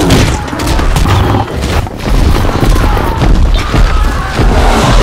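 Film battle sound effects: heavy booms and crashes following one another, with music underneath.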